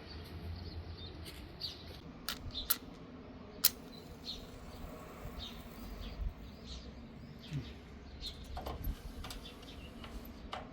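Small birds chirping on and off in short calls, with a few sharp clicks and a steady low rumble underneath.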